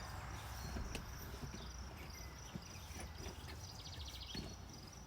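Crickets chirping faintly in rapid pulsing trills over a low steady background hum, with a few faint scattered clicks.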